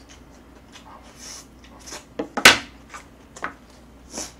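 Close-up eating sounds: a mouthful of ramen noodles being chewed with wet mouth clicks and smacks, and one sharp, louder smack about two and a half seconds in.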